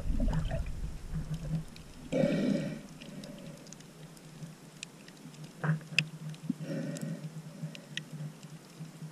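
Underwater sound from a camera held below the surface over a coral reef: a low steady hum with scattered sharp clicks and crackles, and two muffled whooshes of moving water, about two seconds in and again near seven seconds.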